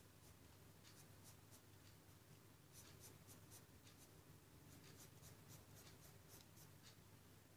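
Faint scratching of a black felt-tip marker hatching short shading strokes on sketchbook paper: a few strokes at first, then about three a second from around three seconds in.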